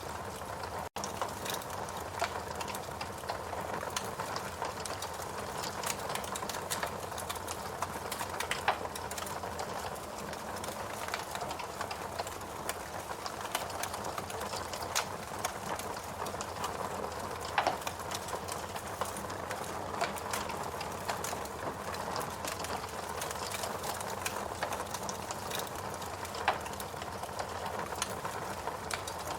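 Logs burning in a fireplace: a steady hiss with dense small crackles and a few louder pops, the loudest about nine, eighteen and twenty-seven seconds in. The sound cuts out for an instant about a second in.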